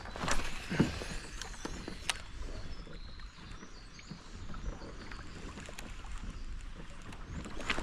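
Water lapping and sloshing against a fishing kayak's hull as it moves, with scattered light clicks and knocks.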